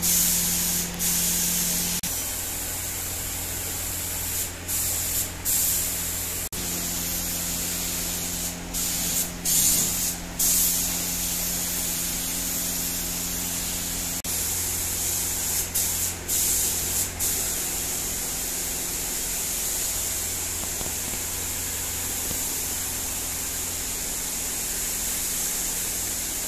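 Compressed-air paint spray gun hissing as clear coat is sprayed onto car body panels, with short louder spurts now and then over a steady low hum.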